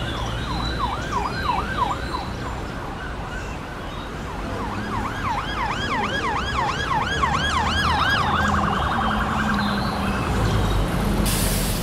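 Electronic siren yelping in even rising-and-falling sweeps, about four a second, breaking off for a couple of seconds, then switching to a faster warble near the end.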